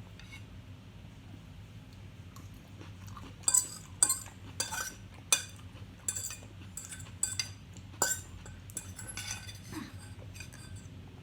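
Cutlery clinking against a dish during a meal: about a dozen sharp, separate clinks starting a few seconds in and spread over the next six seconds.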